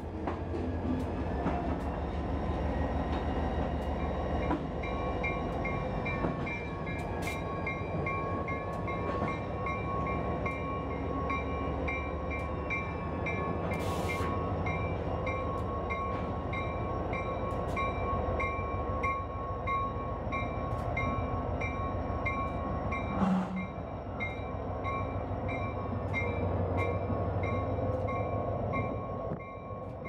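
Slow freight train passing: a diesel locomotive's steady rumble over hopper cars rolling by, with the locomotive bell ringing steadily from about four seconds in. There is a brief loud knock about three quarters of the way through.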